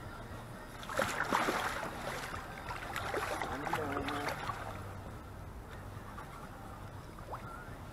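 Water splashing at the side of a boat, loudest for a second or so about a second in, then quieter water sounds.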